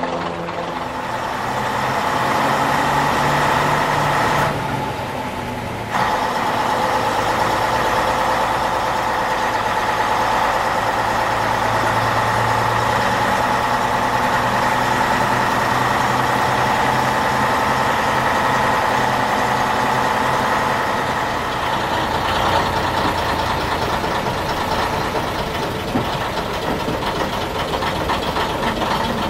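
Heritage bus's diesel engine running steadily, with a brief drop in level about five seconds in.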